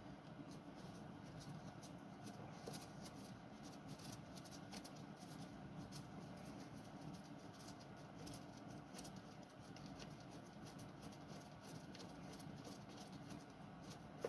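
Faint, irregular small clicks and light scrapes from motorcycle parts being handled, over a low steady hum.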